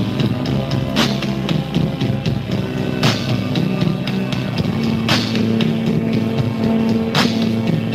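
Slow rock band playing live, instrumental: long held low chords with a drum-and-cymbal hit about every two seconds.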